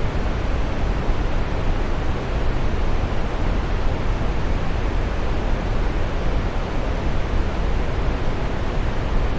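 Waterfall: a steady, even rush of falling water, deep and full in the low end, with no change or breaks.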